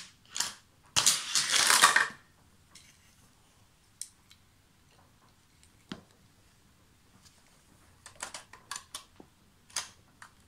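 Scattered clicks and light clatter of plastic toy cars and a toy car-carrier truck being handled, with a loud noisy burst lasting about a second, a second in, and a quick run of clicks near the end.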